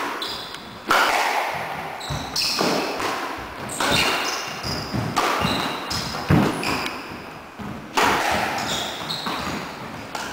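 Squash rally: the ball cracking off racquets and the court walls with sharp hits every second or so, each ringing on in the enclosed court, with short high squeaks of court shoes on the hardwood floor between the hits.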